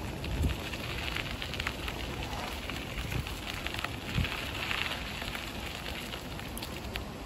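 Bicycle tyres rolling over a gravel path, with irregular small crackles from the stones and a couple of low bumps, over a steady rushing noise from the river beside the path.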